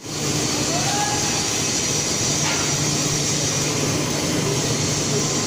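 Textile finishing machinery, a continuous mercerising range, running in a mill hall: a steady loud industrial din with a low hum and a high hiss, cutting in sharply at the start. A faint click comes about two and a half seconds in.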